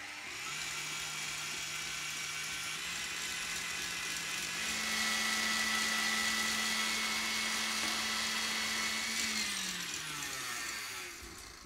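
KitchenAid stand mixer running with its wire whisk beating eggs and palm sugar in a steel bowl. The motor's hum steps up in pitch and gets louder about five seconds in as the speed is raised, then winds down near the end as the mixer is switched off.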